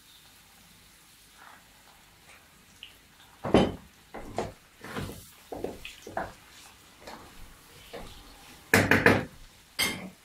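Wooden spatula stirring chicken hearts in a frying pan, scraping and knocking against the pan several times, with a louder cluster of knocks near the end.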